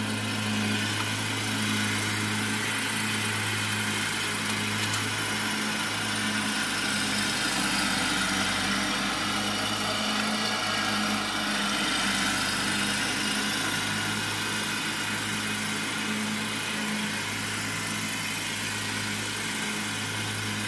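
Car engine idling, heard from inside the cabin: a steady low hum with an even hiss over it.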